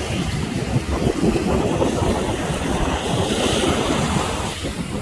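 Wind buffeting the microphone in a low, uneven rumble, over the wash of surf on the beach.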